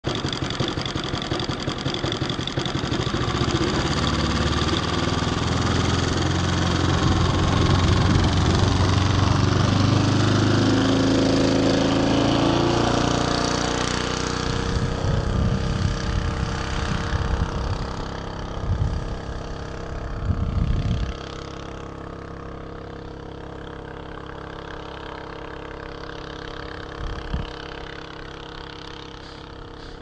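Radio-controlled scale Gipsy Moth biplane's engine running up for its take-off run, loud at first, then fading away from about halfway as the model climbs off.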